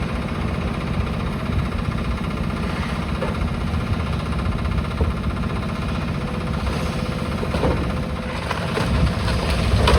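Heavy diesel engine of demolition machinery running steadily, growing a little louder near the end.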